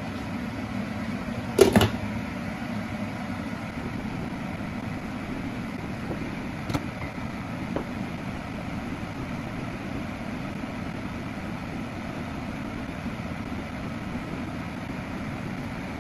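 A glass lid is set onto a frying pan with a sharp clink a little under two seconds in, then a steady low noise as the covered pan of broth and vegetables boils, with a couple of faint clicks.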